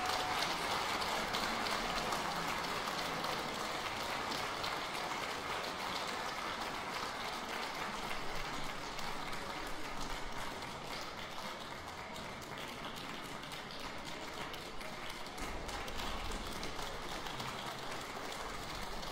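Long, steady audience applause that slowly grows quieter.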